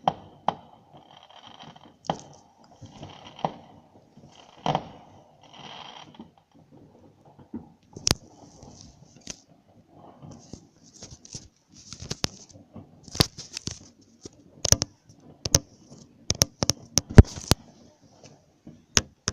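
Fireworks going off: irregular sharp bangs with bursts of high crackling between them. The bangs come thicker in the second half, and the loudest is near the end.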